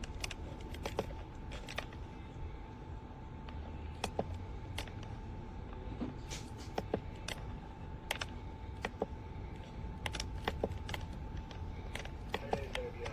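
Scattered light clicks and taps at irregular intervals, over a steady low hum and a faint steady tone.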